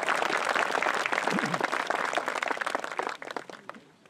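Small audience applauding, the clapping thinning out about three seconds in and dying away near the end.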